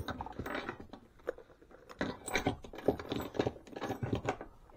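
Handling noise of a Toughbuilt nylon tool pouch and its shoulder strap being moved about on a wooden bench: irregular rustling of the heavy fabric with scattered clicks and knocks.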